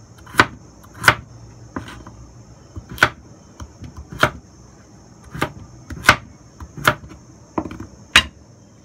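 Chinese cleaver dicing carrot on a wooden chopping board: about ten sharp knocks of the blade striking the board, spaced unevenly half a second to a second apart.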